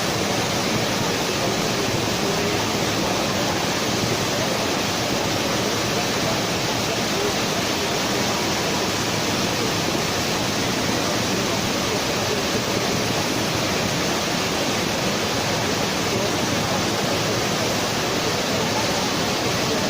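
Steady, unbroken rushing roar of heavy industrial plant noise at a steel plant blast furnace.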